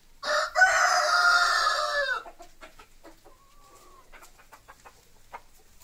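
A rooster crows once, loud and about two seconds long, its pitch dropping at the end. Afterwards hens cluck softly, with scattered light clicks.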